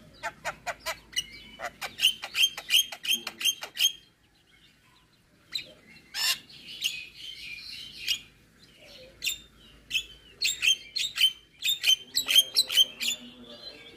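Javan myna giving a fast string of sharp, clicky chirps, pausing briefly about four seconds in, then resuming with a busier, more varied run of chattering calls.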